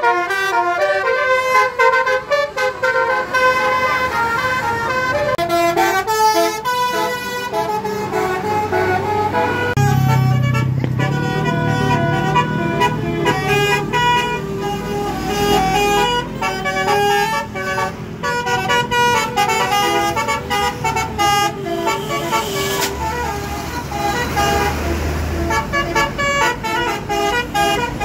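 Indonesian bus 'telolet' horn, a multi-tone horn playing a stepped musical tune over and over. A bus engine rumbles past about ten seconds in and again near the end.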